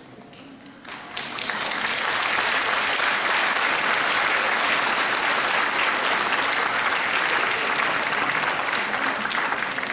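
Audience applauding, starting about a second in and quickly building to loud, steady applause.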